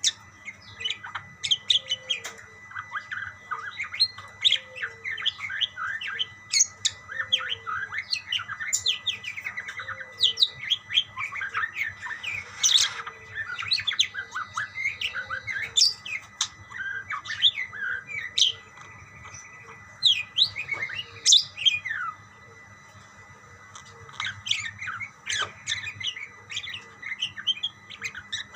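Budgerigars chattering back and forth in a dense run of quick, high chirps and warbles, with a brief lull about three quarters of the way through.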